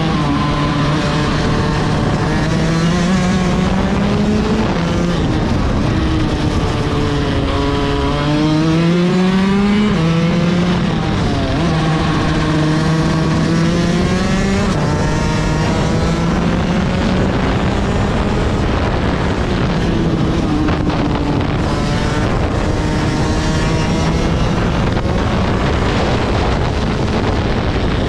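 Rotax 125 DD2 EVO two-stroke kart engine running at racing speed, heard from on board, its revs climbing along the straights and dropping into the corners several times.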